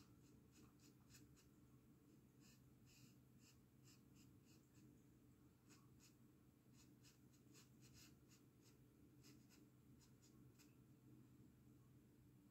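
Near silence with faint, irregular light taps and scrapes of a fan brush dabbing oil paint onto canvas, several strokes a second in clusters, stopping shortly before the end.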